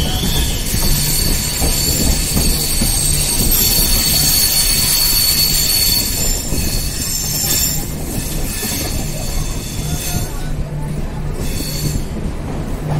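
A passenger train running along the track, heard from aboard. Its wheels squeal with a high steady tone through roughly the first half, fading after about six seconds, over the constant rumble of the wheels on the rails.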